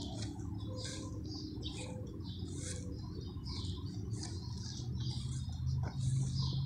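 Birds chirping, short high calls about two or three a second, over a steady low hum.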